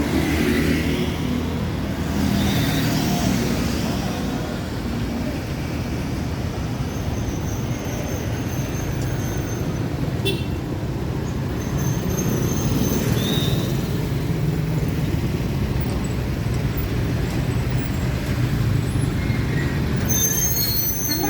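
Bus diesel engines running in roadside traffic, a steady low rumble, with hisses of air brakes right at the start and again about two and a half seconds in.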